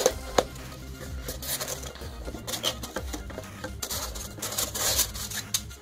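Cardboard product box being opened and its packing pulled out: two sharp clicks near the start as the box is worked open, then cardboard and a foam insert sliding and rustling against each other in short bursts.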